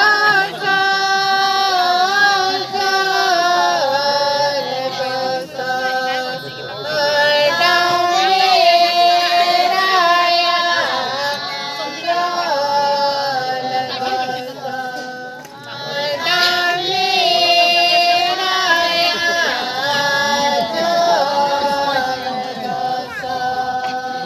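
Women singing a slow melody with long held notes.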